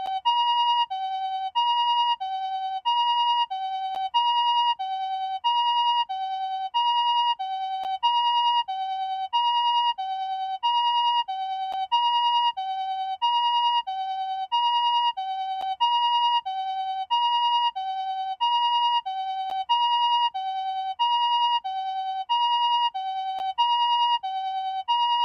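Japanese ambulance siren, TCD type, sounding its two-tone 'pee-poh' call: a higher tone and a lower tone alternate steadily, each held a little over half a second, with the higher tone louder.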